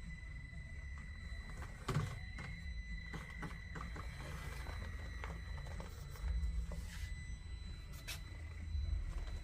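Traxxas TRX-4M's electronic speed control giving a steady high-pitched squeal as the small crawler drives, with scattered clicks and knocks from the truck's tyres and body on the course obstacles.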